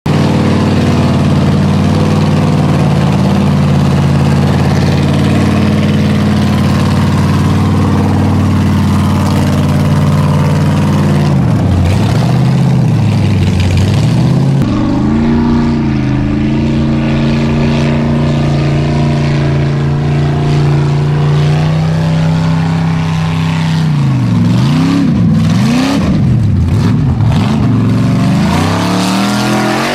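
Formula Offroad buggy's engine idling loudly, revved a few times about twelve seconds in, then idling again before repeated revs over the last six seconds.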